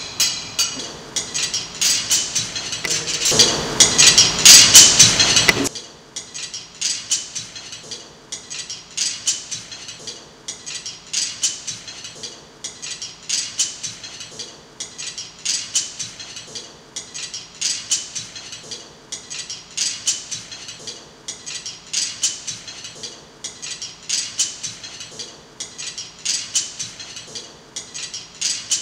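Dense, loud clattering clicks that stop suddenly about six seconds in, followed by a quieter run of light clicks and taps in a pattern that repeats about once a second.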